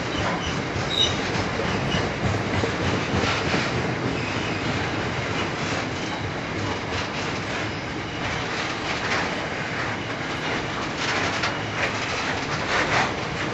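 Coal train rolling past on narrow-gauge track: wagon wheels clicking rhythmically over rail joints over a steady rumble, with a short high wheel squeal about a second in.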